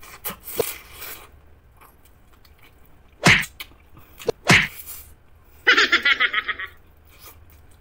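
Close-up eating sounds from a person eating fried chicken by hand: two sharp mouth noises about a second apart, then about a second of rapid pulsing mouth noise.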